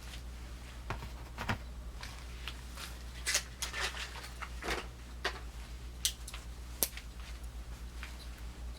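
Scattered light clicks and taps as small Swiss Army knives are handled close to the microphone, with a steady low hum underneath.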